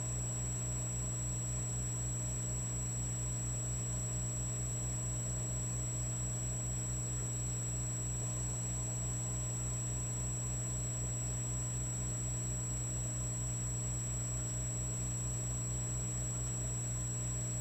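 Electric fireplace log set giving off a steady low electrical hum, with a fast even flutter underneath and a faint high whine.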